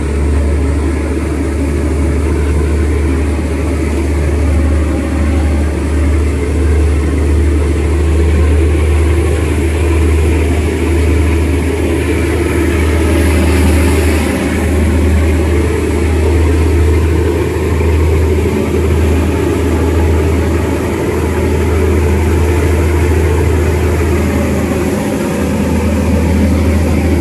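Boat engine running steadily with the boat under way, a constant low hum mixed with the rush of water along the hull. About halfway through, the hiss of the foaming wake briefly grows louder.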